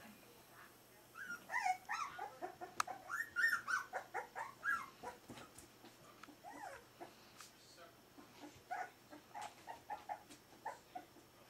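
Four-week-old Berger des Pyrénées à face rase puppies yipping and whimpering as they play-fight. A busy flurry of short high calls starts about a second in, then thins to scattered yips.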